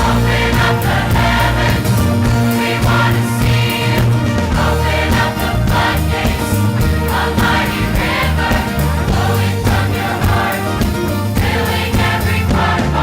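Church choir of women's voices singing a worship song with full accompaniment, a steady beat and strong bass.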